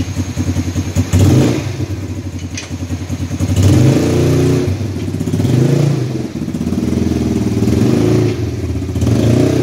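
300cc quad bike's petrol engine idling, then revved up and let fall back several times with the throttle.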